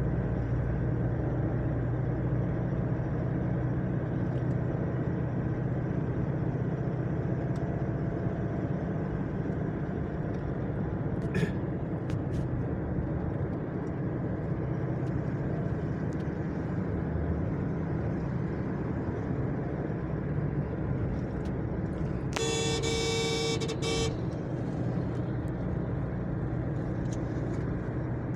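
Steady low rumble of a vehicle driving along a road. A horn sounds once near the end, a single held note lasting about a second and a half.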